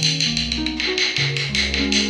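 Instrumental music with a quick, steady beat over a bass line that moves to a new note every half second or so.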